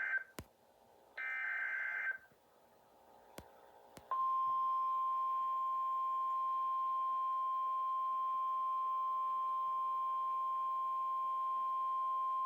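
Emergency Alert System activation. The end of one SAME header data burst, then a full burst of rapid warbling data tones about a second long. After a short pause, about four seconds in, the single-tone weather warning alarm starts: one steady high tone that holds, the attention signal ahead of a tornado warning message.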